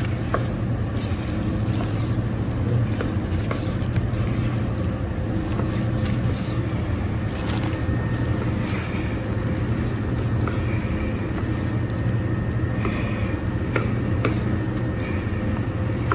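Steady low machine hum, with a few faint clicks of a knife against the cutting board as beef liver is sliced.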